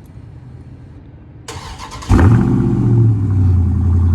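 Dodge Charger Scat Pack's 392 (6.4-litre) HEMI V8 cold-starting through its exhaust. The starter cranks briefly about a second and a half in, and the engine catches with a sudden loud burst about two seconds in, flares up in revs, then settles into a steady, loud high idle.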